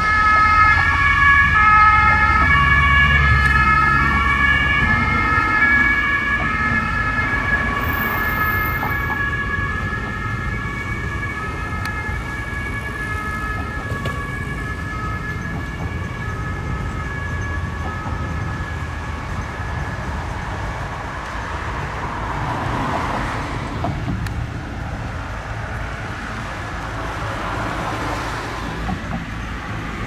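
German two-tone emergency siren (Martinshorn, "tatütata") alternating between its two pitches, loudest at first and fading away over the first dozen seconds as the vehicle moves off. Then steady vehicle and engine rumble.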